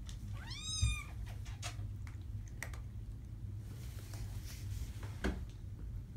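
A three-week-old kitten gives one short high mew, its pitch rising and falling, about half a second in. A few faint clicks follow over a steady low hum.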